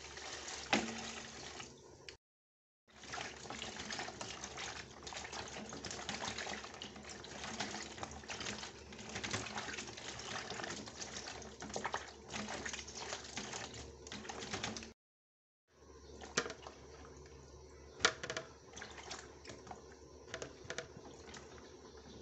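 Water poured into a plastic basin, then hands swishing and rubbing sliced eggplant in the water, with splashing and small knocks of the pieces against the basin. The sound cuts out twice briefly, and it is quieter with a few sharp clicks near the end.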